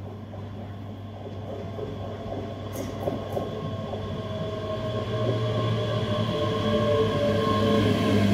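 ScotRail Class 385 electric multiple unit approaching and running in alongside the platform, steadily growing louder. Wheel-on-rail rumble, with a whine of several steady tones from the train coming up about halfway through.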